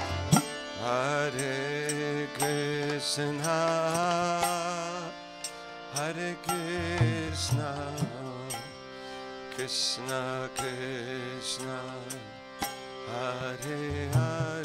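Devotional kirtan music without words: steady held drone tones under a melodic line that slides and wavers in pitch, with a few short sharp strikes.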